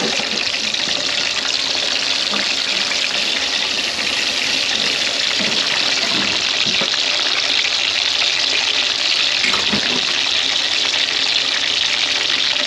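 Pork belly slabs deep-frying skin side down in a wok of hot oil, a steady sizzle of bubbling oil. There is hardly any popping or spattering, the aim of pricking the skin and rubbing it with vinegar and salt before frying.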